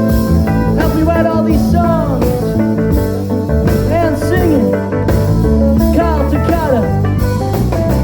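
Music with guitar over a steady bass line, its notes bending and sliding up and down in pitch.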